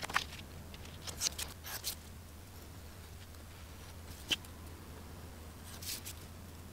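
Craft knife cutting card stock on a cutting mat, with the paper card rustling as it is turned: short scratchy cuts about a second in and near the end, and one sharp tick a little past halfway. A low steady hum underneath.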